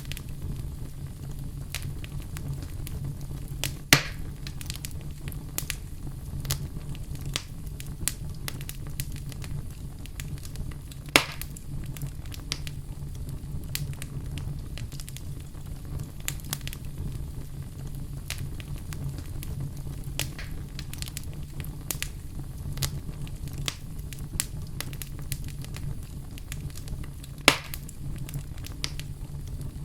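Fireplace fire crackling: frequent small crackles and pops over a steady low rumble, with three sharper, louder pops spread through.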